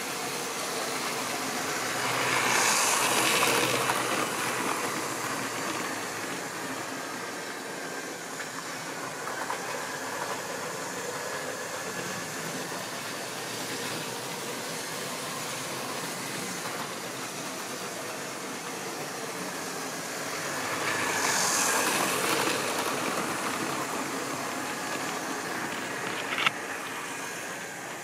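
Electric model trains running on a model railway layout: a steady running noise that swells twice, about two seconds in and again about twenty seconds in, as a train passes close by. A sharp click near the end.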